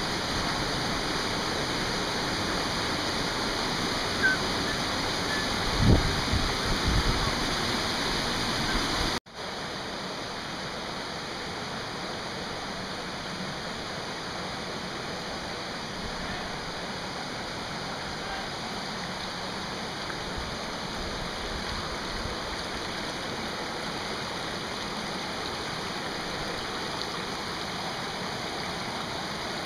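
Mountain stream rushing over boulders and small cascades, a steady rush of water. A few low thumps come around six seconds in. About nine seconds in the sound cuts abruptly, and the rush goes on a little quieter.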